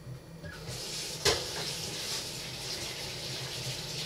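Kitchen sounds while cooking: a steady hiss sets in under a second in, and a single sharp clink of a dish or utensil comes a little later.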